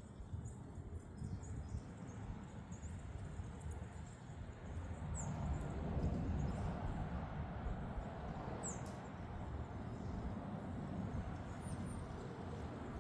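Wind blowing on the microphone, growing stronger about five seconds in, with a few short, high bird chirps.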